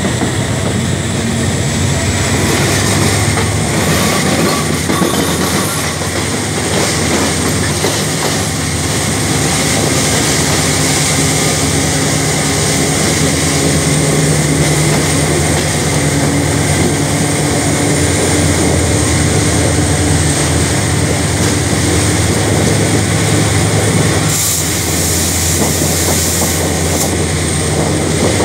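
Locomotive-hauled passenger train running along the track, heard from an open coach window: a steady rumble of wheels on rails with wind, over a low steady hum. A brief hiss rises about three quarters of the way through.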